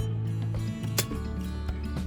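Background music with a bass line and changing notes, with one sharp click about a second in.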